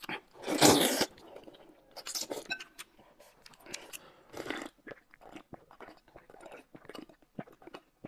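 Close-miked eating sounds: a loud slurp of noodles about half a second in, then quieter slurps, sips and chewing as broth is drunk straight from the bowl.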